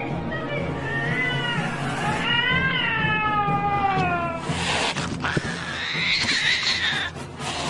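Cat meowing: three drawn-out, wavering calls, the longest rising and then falling in pitch midway, the last one near the end. Background music plays underneath.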